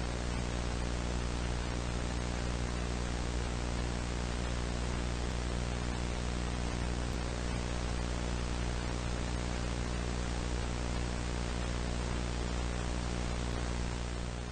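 Steady static hiss with a low buzzing electrical hum underneath.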